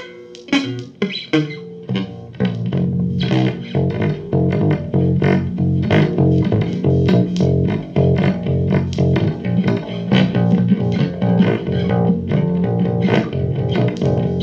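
Guitar and bass guitar music: a few sparse plucked notes, then about two seconds in a full, steady rhythmic groove with a strong bass line.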